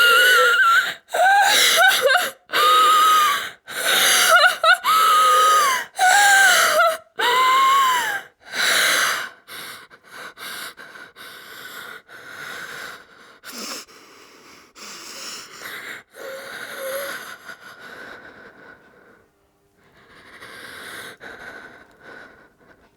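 A frightened woman breathing hard in loud, separate gasping breaths, some carrying a thin high whine. After about nine seconds the breaths grow quieter and shorter, pause briefly, and return faintly near the end.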